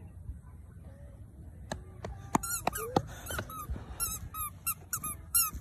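A quick run of short, high squeaks, about three a second, starting a couple of seconds in, after a few sharp clicks.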